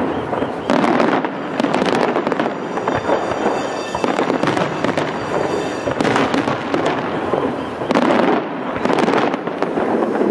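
Fireworks going off in a dense, continuous barrage: a steady mass of pops and bangs with louder bursts every second or two.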